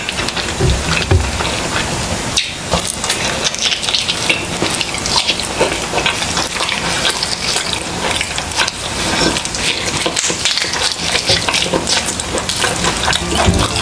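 Close-miked chewing and wet mouth-smacking on grilled chicken, a dense run of crackly, wet clicks as the skin and meat are bitten and pulled apart.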